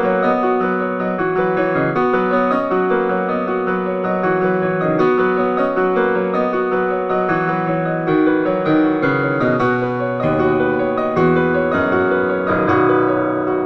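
Piano music: a steady flow of sustained notes, with deeper bass notes joining about ten seconds in.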